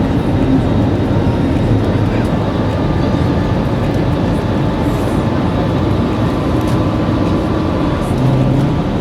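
Steady noise of jet engines and rushing air heard inside an airliner cabin during the climb after takeoff.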